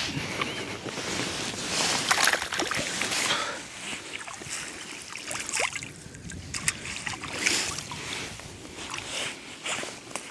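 River water splashing and sloshing in irregular bursts as the catch of fish is let go back into the river, loudest about two seconds in.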